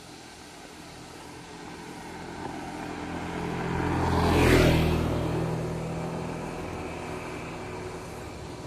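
Small automatic motor scooter passing close by, its engine and tyres growing louder to a peak about four and a half seconds in, then fading as it goes away.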